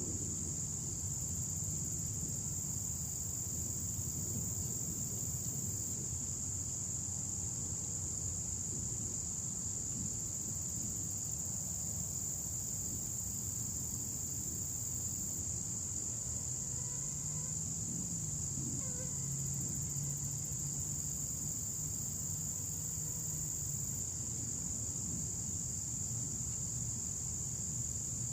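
A steady chorus of crickets, one continuous high trill that never breaks, over a faint low hum.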